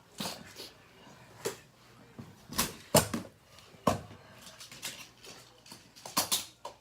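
Plastic magnetic building tiles clicking and clacking together as they are handled, a series of irregular sharp knocks with the loudest about three seconds in.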